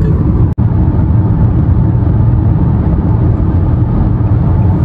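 Steady low rumble of road and engine noise inside a car's cabin while driving at motorway speed, briefly cut off about half a second in.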